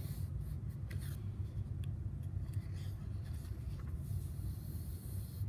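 Pen scratching on paper as a line of text is underlined in a workbook, then paper rustling as the pages are turned and a hand slides across them, rising near the end. A steady low hum runs underneath.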